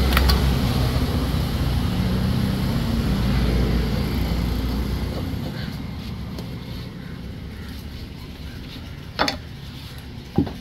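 A motor vehicle rumbling past, fading away over the first five seconds. Then two sharp knocks about a second apart near the end: a cleaver striking the log chopping block of a fish stall.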